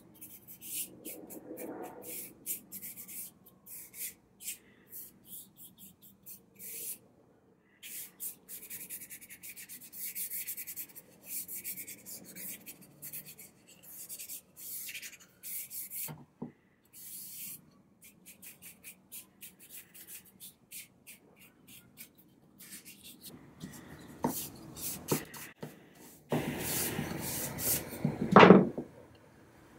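Paintbrush bristles brushing wood stain onto a bare wooden chair slat: quick, short swishing strokes that stop and start, with a louder, longer spell of brushing near the end.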